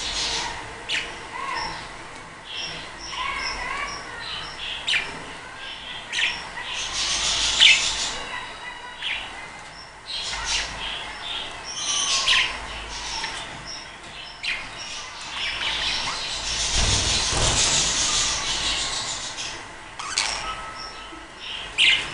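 A flock of budgerigars chirping and chattering, with many short, sharp calls overlapping. About three-quarters of the way through, a longer rushing noise rises and fades.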